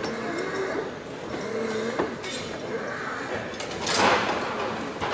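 Team of draft horses lunging into their collars and dragging a weighted pulling sled across the dirt floor, with a loud scraping rush about four seconds in, over crowd chatter.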